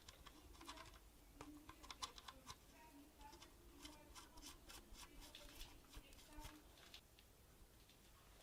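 Faint, scattered light clicks and taps, irregular and several a second at times, like small metal parts or tools being handled.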